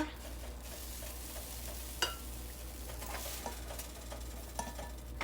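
Pancake batter sizzling on a hot pan, with a ringing clink of a utensil about two seconds in and a few light knocks later.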